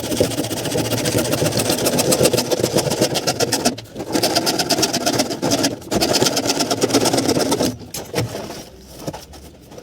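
An electric machine's motor running under load with a fast, even chatter. It stops briefly twice and cuts out about eight seconds in.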